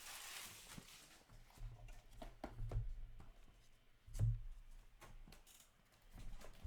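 Trading cards being handled and flipped on a table: a short slide of card stock at the start, then scattered light clicks and taps with a few soft thumps.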